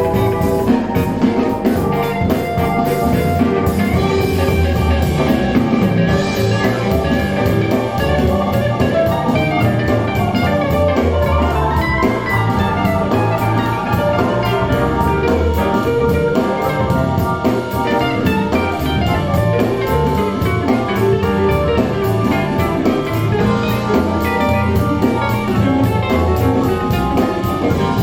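Instrumental music with a steady beat, played back through a pair of KEF LS50 bookshelf speakers, whose aluminium-dome tweeter sits in the centre of the mid/bass cone, and picked up in a furnished living room.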